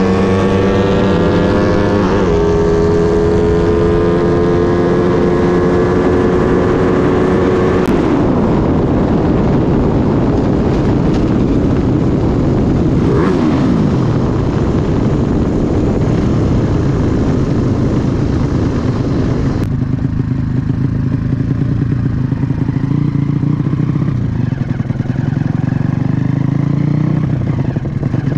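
Drag-racing motorcycle engine at full throttle, its pitch climbing fast to a high, steady note with a short dip about two seconds in as it shifts gear. About eight seconds in the throttle closes and the pitch drops away, leaving wind rush and the engine running at low revs while the bike rolls on.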